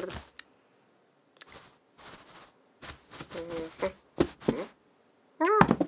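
Cartoon cat sound effects voiced by a person: a few short clicks and snaps and brief murmured cat noises, then a loud wavering cat-like cry near the end.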